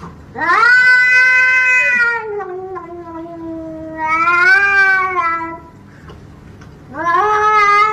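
Domestic cat giving long, drawn-out calls: the first lasts about five seconds, sliding down in pitch and swelling again near its end, and a second begins about seven seconds in.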